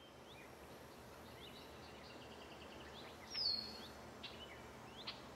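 Outdoor nature ambience: small birds chirping and trilling over a steady low rush, with one louder, falling bird call about three and a half seconds in.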